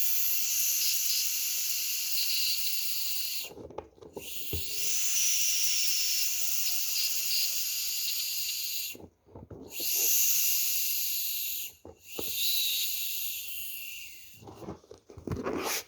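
Air hissing out of a football through its valve as the ball is deflated, in four long spells with short breaks between them.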